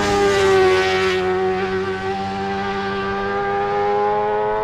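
Race motorcycle passing at full throttle: its engine note swells to a peak with a rush of air in the first second, drops a little in pitch as it goes by, then holds a steady high-revving note.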